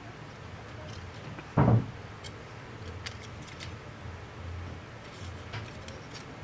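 A single dull thump about one and a half seconds in, then a few faint, light clicks, over a low steady hum: small handling knocks on a phone-repair workbench.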